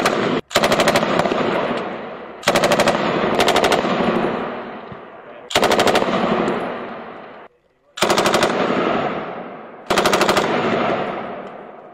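M240 belt-fed 7.62 mm machine gun firing short bursts, seven in all, each about half a second of rapid shots. Between bursts the echo rolls away across the range.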